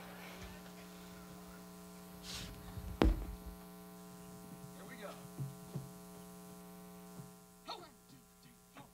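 Steady electrical mains hum from the stage sound system, with one sharp thump about three seconds in and a few faint small knocks.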